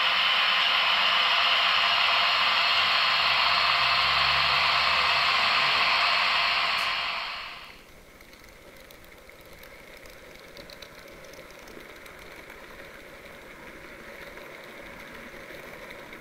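Loud, steady hiss from the sound decoders of the Märklin SBB Re 6/6 and Ae 6/6 model electric locomotives, fading out about seven seconds in. After that comes the much fainter, steady running noise of a model train on the track.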